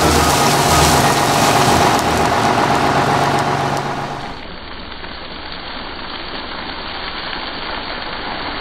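Turkey-fryer oil fire burning in a dense rush, the oil boiled over and ignited by a frozen turkey, under background music with a pulsing bass beat. About four seconds in the sound cuts to a quieter, duller rush of the fryer's flames.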